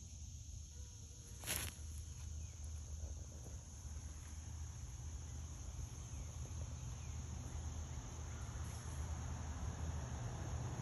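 Steady high-pitched chorus of insects such as crickets, in two unbroken layers, over a low rumble. A single sharp click sounds about a second and a half in.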